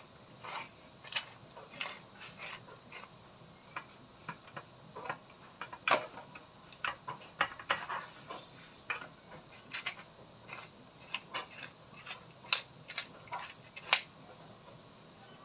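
Wooden pepper mill grinding black pepper: irregular spurts of crunchy clicks and crackles.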